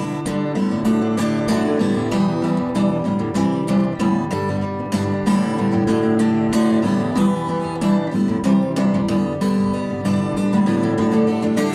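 Acoustic guitar strummed in a steady rhythm, playing chords of an instrumental passage between sung verses.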